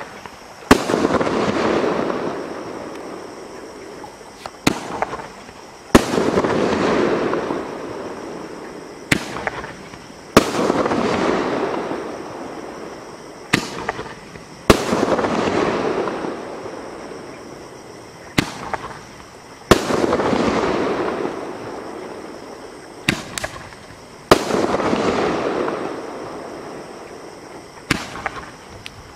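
An 8-shot Roman candle firing about every four and a half seconds. Each shot is a sharp bang trailing off over three or four seconds, with one or two small pops just before the next.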